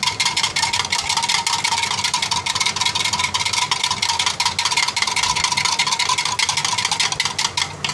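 A wire whisk beating a flour-and-water slurry in a glass jug: rapid, steady clicking of the wires against the glass with a light ringing tone. It stops just before the end.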